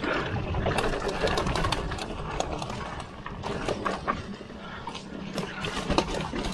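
Mountain bike clattering along a rough dirt singletrack: many irregular rattles and knocks from the chain and frame over bumps, with tyres crunching over dry leaves and grass, over a steady low rumble.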